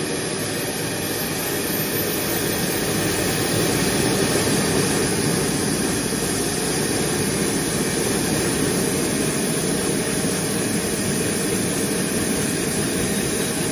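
Bell 222B's Lycoming LTS101-750 turboshaft engine spooling up during a slow start: a steady turbine rush with a faint high whine that climbs in pitch at first. It grows a little louder a few seconds in, then holds steady.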